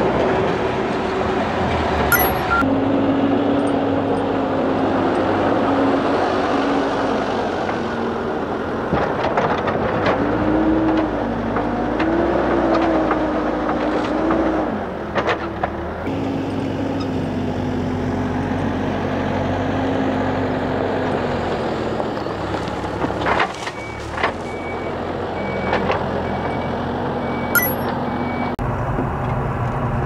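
Diesel engines of heavy construction machinery, a backhoe loader among them, running steadily, with the engine note changing pitch a few times. Near the end a reversing alarm beeps repeatedly.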